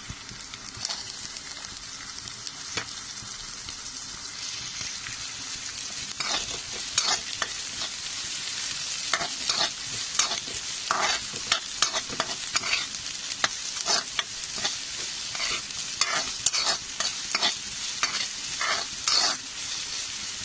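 Diced green beans and carrots frying with ginger and garlic in hot oil in a pan, a steady sizzle. From about six seconds in, a metal ladle scrapes and stirs against the pan in quick, repeated strokes, the loudest sounds here.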